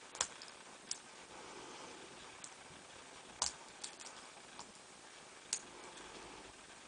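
Lock picks working inside a solid-brass Waterbury padlock: small, sharp clicks and ticks at irregular intervals, about eight in all, the loudest just after the start, midway and near the end.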